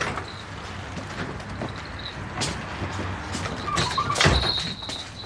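A vehicle running with steady road noise, with sharp knocks about two and a half seconds in and, louder, about four seconds in.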